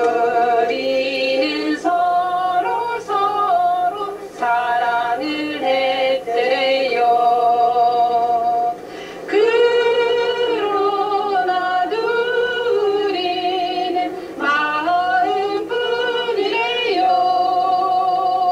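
Church choir singing a sacred song together in long held phrases, with a short break about nine seconds in.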